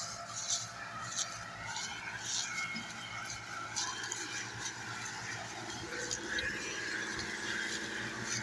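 Tractor diesel engines running under load as they haul a trolley piled high with sugarcane, with a steady high squeal over the engine hum. Short high rasps come every half second or so through the first half.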